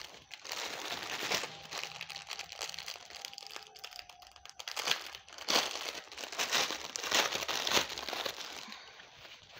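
Clear plastic packaging crinkling and rustling as hands unwrap a satin blouse from it, in irregular bursts that are loudest a little past halfway through.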